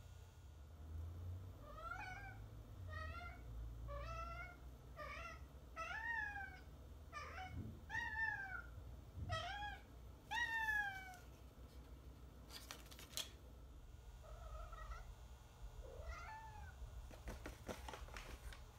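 A tuxedo cat meows about once a second, nine rising-then-falling calls that grow louder, while carrying a sheet of paper in its mouth. After a short break with a few clicks, two quieter meows follow, then some papery rustling and clicks near the end.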